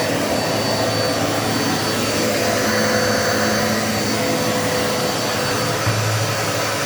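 Dirt Devil Multi-Surface vacuum cleaner running steadily while vacuuming, a rush of air with a faint high motor whine.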